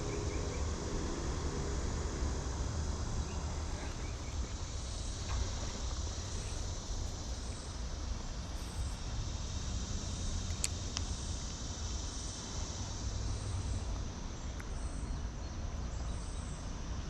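Insects trilling in an even, repeated pulse of about one and a half a second, over a steady low rushing noise, with a couple of faint ticks near the middle.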